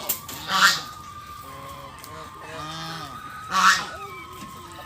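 Domestic goose honking: two loud harsh calls, about half a second in and again about three and a half seconds in, with softer calls in between.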